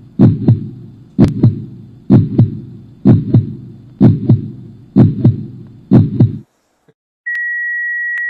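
Heartbeat sound effect: a loud double thump about once a second, seven beats, that stops about six and a half seconds in. Just under a second later a single steady high tone comes on and holds, a heart monitor's flatline.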